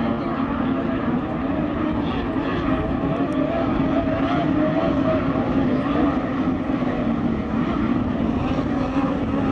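Several tunnel-hull racing outboards running at full throttle as they pass, their engines blending into one steady, high drone that wavers slightly in pitch.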